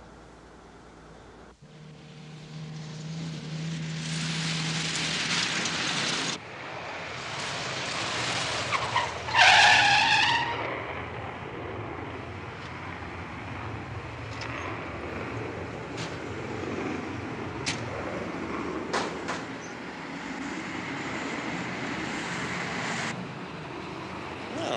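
A car running and driving, with a loud falling screech of tyres about ten seconds in, then steady engine and road noise with a few sharp clicks.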